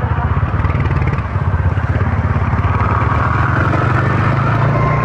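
Two-wheeler engine running steadily while riding along a road, with a rush of wind and road noise.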